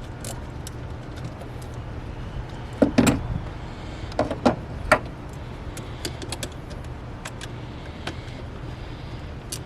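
Scattered metallic clicks and knocks of a socket wrench and loosened parts being handled while the air filter lid bolts come out, loudest about three seconds in and again around four to five seconds in, over a steady low hum.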